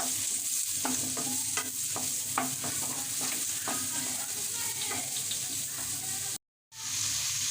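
Chopped vegetables stir-frying in hot oil in a pan: a steady sizzle with a spatula clinking and scraping against the pan about every half second. The sound cuts out briefly near the end.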